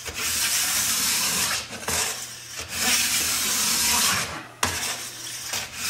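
A hand tool cutting away the plastic sidewall of a ski in long scraping strokes, three strokes of about a second and a half each with short pauses between.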